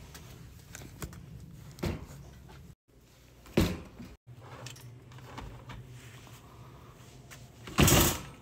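A wire shopping cart being pushed and handled: a low steady rumble with a few knocks as items knock about in the basket, the loudest a sharp clatter near the end. The sound cuts out abruptly twice for a moment.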